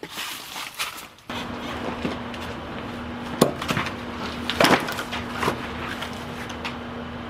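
Split firewood being handled and stacked. A few light wooden clatters come first, then a change to a steady low hum, over which split logs knock onto a stack, the loudest knock about halfway through.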